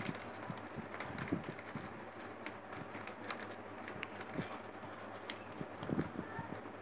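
Newspaper being crumpled and squeezed by hand into a small ball, with irregular crinkling and crackling of the paper.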